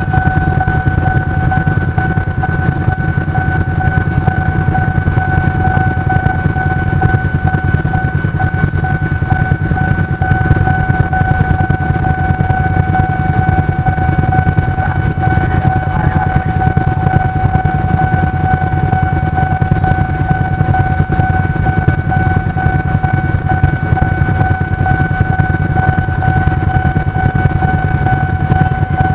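Several motorcycles and scooters idling while stopped in a queue, a steady low rumble. A constant high-pitched tone sounds over it without a break.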